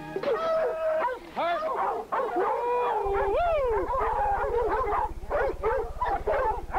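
Several dogs barking, yelping and howling in quick rising-and-falling calls while baying a wild hog. A low electrical buzz comes in about halfway.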